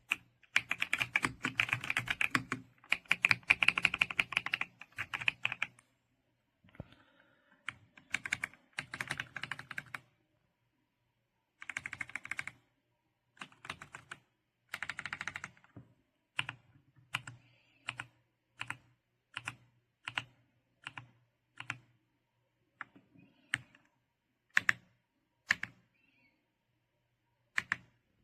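Typing on a mechanical keyboard: quick runs of keystrokes for about the first fifteen seconds, then single key presses roughly once a second. A faint steady low hum runs beneath.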